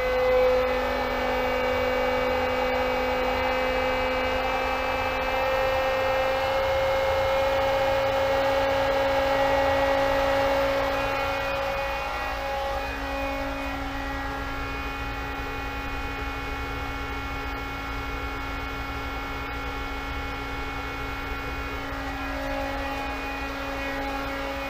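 Pentair SuperFlo variable-speed pool pump running at 3000 RPM under load, a steady motor hum with a whine.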